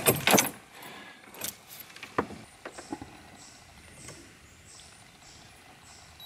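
Handling noise from fishing gear being readied in a canoe: a few sharp clicks and knocks right at the start, then scattered single ticks and faint rustling.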